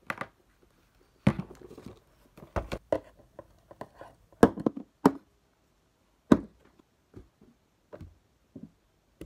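Skincare bottles, tubes and jars being set down one after another on a desk, about a dozen separate knocks and clacks at an uneven pace.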